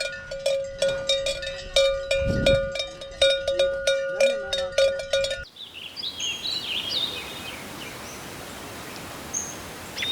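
Several cowbells clanking in a rapid, irregular rhythm, their ringing tones overlapping. About halfway through, this cuts off abruptly to a steady outdoor hiss with birds chirping.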